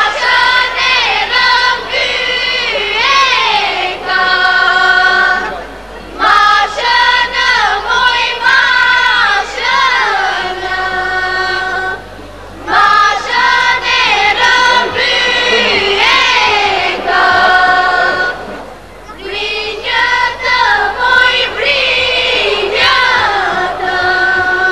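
A group of voices singing an Albanian folk song together, in phrases of about six seconds with short breaks between.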